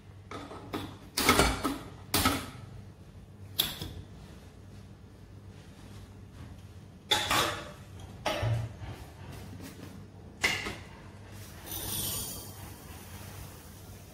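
Steel kitchen containers and utensils being handled: about six separate sharp knocks and clinks spread out, with a short hiss about twelve seconds in.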